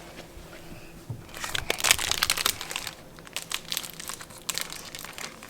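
Plastic fruit snack pouch crinkling as it is handled and opened, in quick crackly bursts starting about a second in, with a short pause in the middle.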